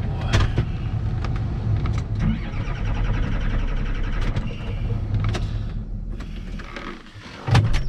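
Tractor diesel engine turned over on its starter motor, a steady low rumble with a motor whine, dying away about six to seven seconds in; a single knock follows near the end. The engine quit with air in its fuel system.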